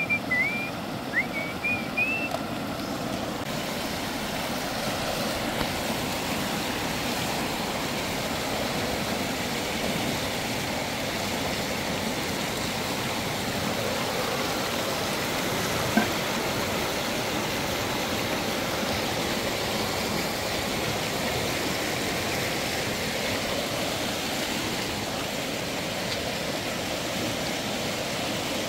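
Piraputanga fish frying in hot oil in a pan, a steady sizzle that fills out a few seconds in. A few high whistled notes come in the first two seconds, and a single short knock sounds about halfway through.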